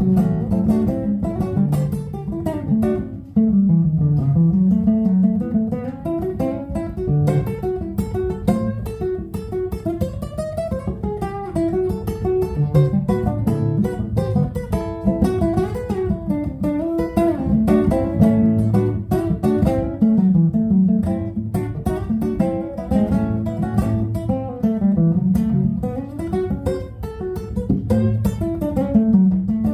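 Instrumental break on acoustic guitar: picked and strummed notes over a walking bass line, with no singing.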